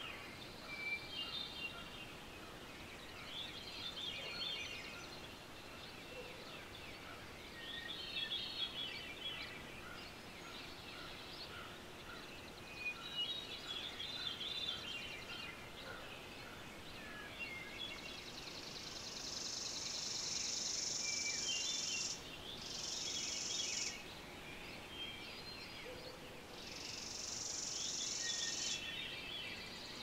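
Morning birdsong: a songbird repeats a short warbling phrase every four or five seconds. From about two-thirds of the way in, a high, steady buzzing trill joins it twice, each time for a few seconds.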